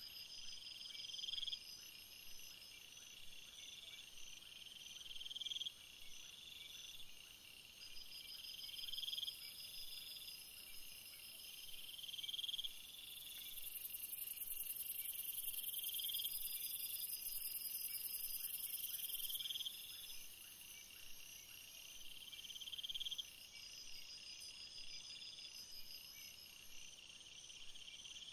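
Faint insects chirping: a steady high trill, with chirping phrases that swell and cut off every three or four seconds. A louder, higher-pitched buzz joins for about six seconds midway.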